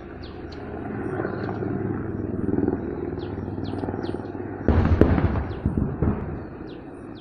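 Steady drone of a distant military helicopter, slowly growing louder, with small birds chirping. About four and a half seconds in, a sudden burst of loud gunfire cracks and bangs breaks out and rolls on for about a second and a half before dying away.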